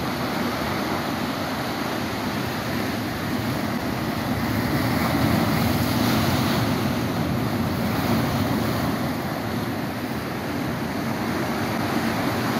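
Sea surf breaking and washing over a rocky volcanic shoreline, a steady rushing that swells louder around the middle as a bigger wave crashes against the rocks.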